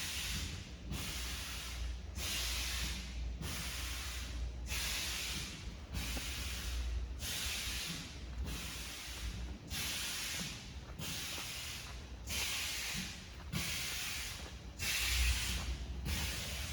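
Pneumatic aerosol gas-filling machine cycling: a hiss of air and gas about every second and a quarter as the filling heads work, over a low machine hum.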